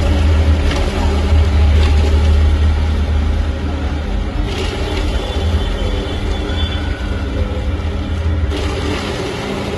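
Motor-driven chopping machine running with a steady, loud low hum.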